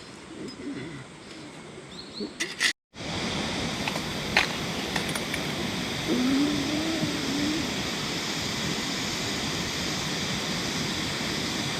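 Steady rushing of a clear river's flowing water, starting abruptly about three seconds in after a few light clinks and knocks. A short wavering low tone sounds briefly about halfway through.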